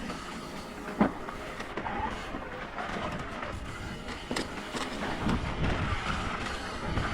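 Mountain bike being ridden on a dirt trail: a steady rumble of tyres and wind, with a sharp knock about a second in.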